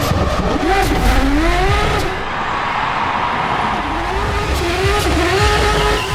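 Drift car engine revving, its pitch rising and falling again and again as the driver works the throttle, over the hiss of spinning tyres.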